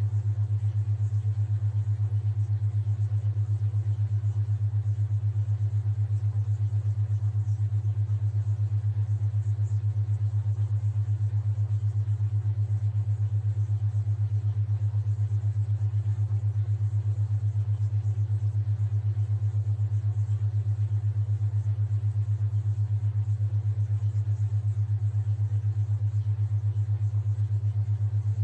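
Steady low theta-wave tone, a deep hum with a fast, even pulse.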